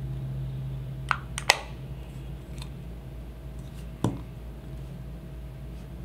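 Light plastic clicks as the cap of a small Edifier e30 Spinnaker remote control is turned and seated onto its base, twice close together, then a single soft knock about four seconds in as the remote is set down on the table.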